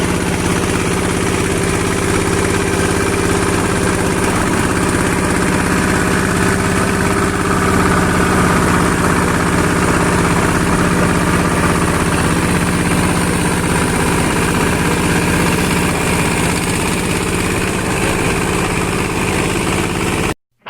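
Fishing boat's engine running steadily, a continuous drone that cuts off abruptly near the end.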